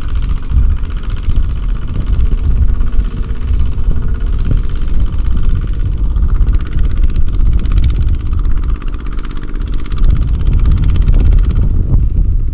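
Kubota ZT140 single-cylinder diesel on a two-wheel walking tractor running loudly and steadily while the tractor is worked to pull free of mud.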